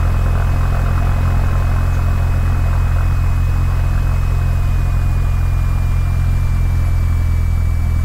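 Cessna 172's piston engine and propeller running at low taxi power, a steady deep drone heard inside the cockpit, with a thin high whine above it that slides slightly lower partway through.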